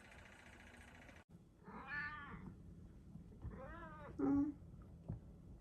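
Domestic cat meowing twice, about two and four seconds in, the second call ending in a short lower note. A steady hum in the first second stops abruptly.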